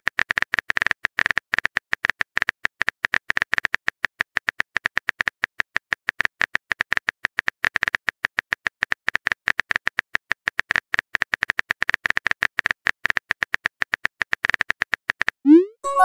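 Phone keyboard typing sound effect: a quick, steady run of taps, one per letter, that stops shortly before the end. It is followed by a short rising swoop and a chime, the message-sent sound.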